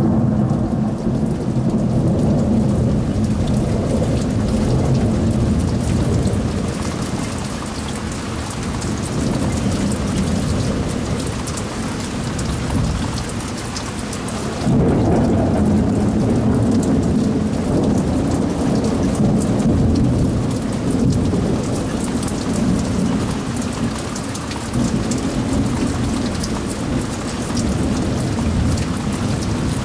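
Heavy rain falling while thunder rumbles without a break. About halfway, after a brief lull, a new peal of thunder starts abruptly and rumbles on louder.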